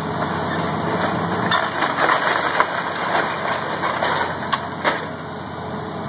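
Caterpillar excavator engine running steadily while its bucket crushes and tears into a house's wooden siding and framing. Wood cracks and snaps several times, the sharpest cracks about two seconds in and just before five seconds in.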